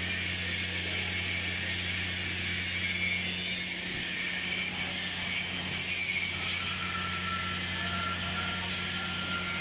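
Steady electrical hum with a constant hiss from running workshop equipment. A faint thin high whine comes in about six and a half seconds in and stops near the end.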